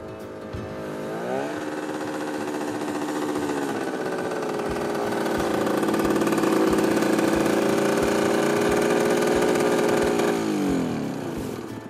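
Simson Spatz SR4-1 moped's single-cylinder two-stroke engine running under way. Its note drops sharply about a second in, grows louder and holds steady, then falls away near the end.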